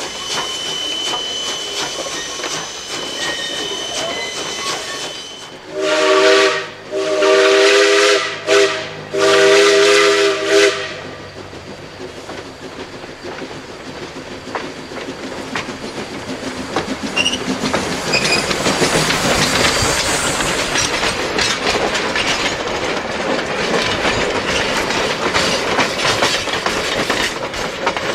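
Steam locomotive whistle blowing four blasts, long, long, short, long, the grade-crossing signal. Then a steam freight train rolling closer and louder over a wooden trestle, its log cars' wheels clattering over the rail joints as they pass close by.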